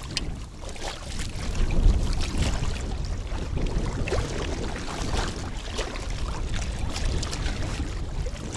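Water lapping against an inflatable boat, with wind buffeting the microphone and a low thump about two seconds in.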